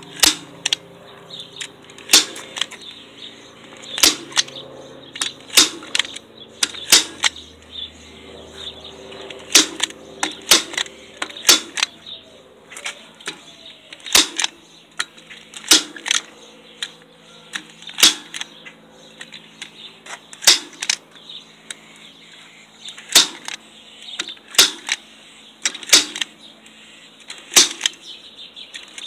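DeWalt staple gun firing staples through chicken wire into a wooden frame: about twenty sharp snaps at uneven intervals of one to two seconds, sometimes two in quick succession.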